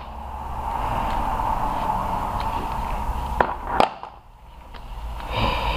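Rag wiping hand tools over a plastic socket-set case against a steady background hum, with two sharp clicks of metal tools set down a little over three seconds in.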